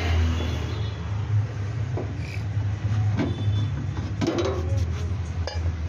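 A steady low mechanical drone, like an engine running, under the scattered rubbing and light knocks of a cloth rag being worked around the inside of a metal engine valve cover.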